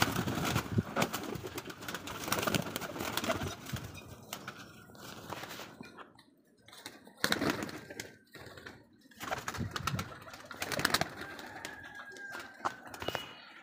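Domestic pigeons cooing as the flock is let out onto the roof, with a few short loud rushes of noise about seven and eleven seconds in.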